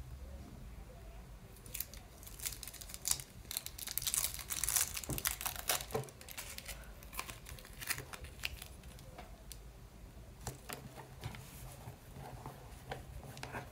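Paper and sticky tape crinkling and crackling as hands handle and peel homemade paper stickers. The crackles come thick from about two seconds in to about seven seconds in, then thin out to scattered rustles.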